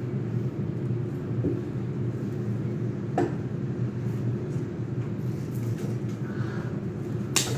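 A steady low mechanical hum, with a light click about three seconds in and a sharper click near the end.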